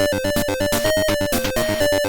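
AY sound-chip music from a ZX Spectrum 128 demo: a buzzy square-wave melody stepping up and down between a few notes. It runs over a fast pulsing bass and hissing noise-channel percussion.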